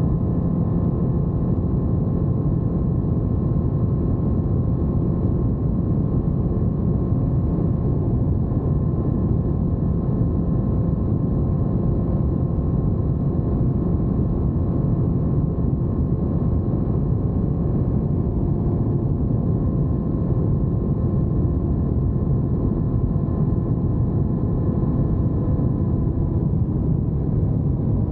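Honda CBR1000RR inline-four sportbike with a Yoshimura exhaust, ridden at a steady speed: a dense, low rush of engine and wind noise that holds an even level and pitch, with no revving or gear changes.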